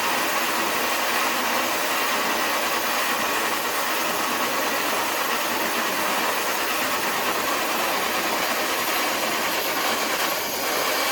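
Modified Traxxas TRX-4 High Trail RC crawler straining to pull a weighted dead sled across concrete: a steady, unbroken grinding of motor, gears and dragging sled.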